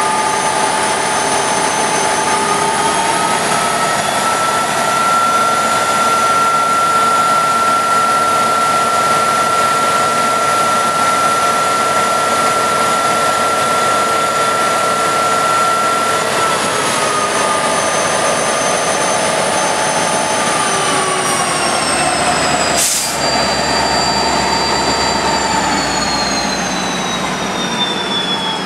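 EMD SD60I diesel-electric locomotive's turbocharged engine run up to notch 5, heard at close range. It has a steady high whine that rises in pitch a few seconds in, holds, then falls in steps over the last ten seconds. A single sharp knock comes about two-thirds of the way through.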